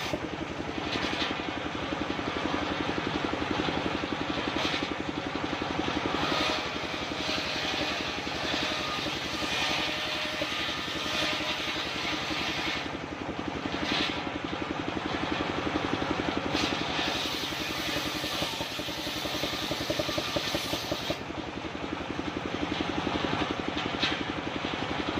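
Engine-driven homemade circular saw running steadily, with brief swells of higher-pitched noise every few seconds.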